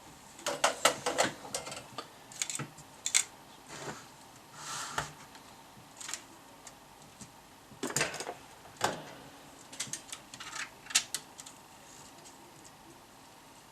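Irregular clicks, taps and short scrapes of small tools and metal parts being handled during a power supply repair, in clusters about a second in and again around eight seconds in.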